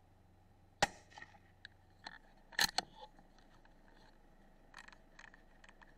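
One sharp shot from a CZ 457 rimfire rifle in .17 HMR about a second in, with a short ring after it. A quick cluster of sharp clicks follows about two and a half seconds in, then a few faint ticks.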